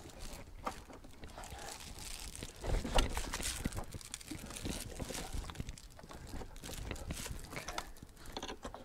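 Rustling and crinkling of foil-faced insulation mat on a car floor as hands work around a seat frame. Scattered light knocks run through it, with a louder clatter about three seconds in.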